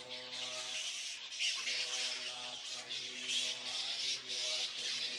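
A roosting colony of flying foxes squabbling: a constant harsh, rasping chatter of many overlapping calls.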